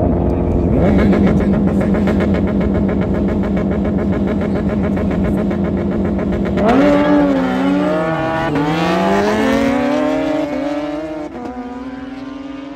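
Superbike engine held at steady high revs, then launched hard about six and a half seconds in: the pitch climbs and drops several times through quick upshifts as it accelerates away and fades.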